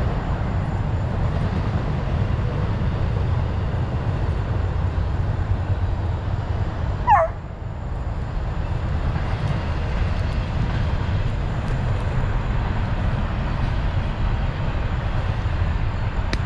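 A young Plott Tan hound puppy gives one short yelp about seven seconds in, falling in pitch. It is heard over a steady low rumble on the microphone.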